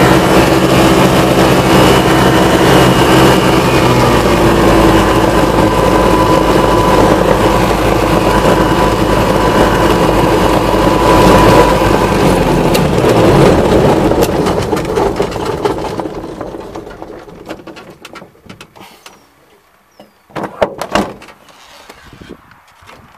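Minimax ultralight's engine and propeller running loudly as the plane rolls out on the grass after landing, the engine note sinking lower. About two-thirds of the way through the engine is shut off and the sound dies away as the propeller coasts to a stop, followed by a few sharp knocks.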